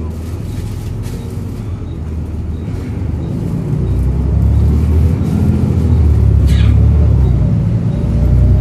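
Volvo B7RLE single-deck bus's diesel engine running, heard on board as a low rumble that grows louder about four seconds in as the bus pulls harder, with a brief high squeak about six and a half seconds in.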